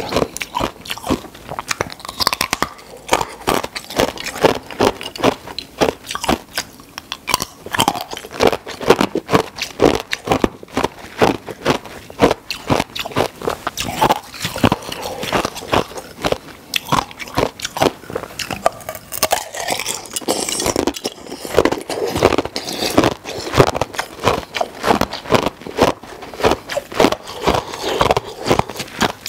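Ice being crunched and chewed, close to the microphone: clear ice balls cracking and breaking between the teeth in a dense run of sharp crunches.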